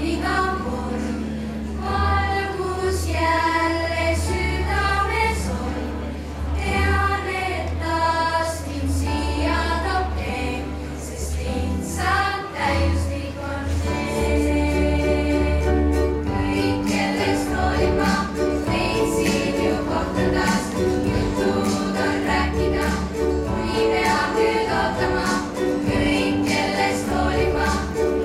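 A children's choir singing a song in Estonian over an accompaniment with a strong, steady bass. About halfway through the singing becomes fuller, with long held notes.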